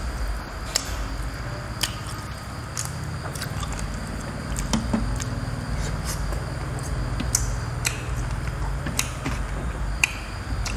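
A person eating roast chicken by hand: chewing, with sharp wet mouth clicks and smacks scattered irregularly, over a steady low background hum.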